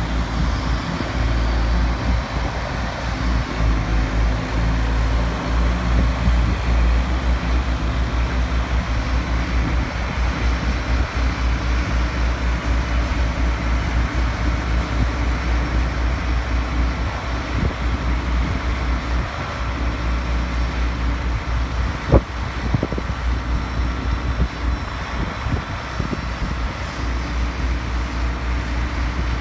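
Large tractor diesel engines running steadily at the silage clamp as a trailer tips its load of chopped grass, with one sharp knock about two-thirds of the way through.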